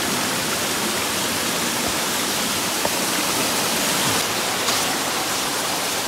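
Small waterfall cascading over rocks, a steady rush of water.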